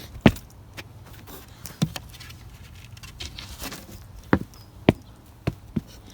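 About six sharp, irregular knocks and clicks, with a low steady hum under them.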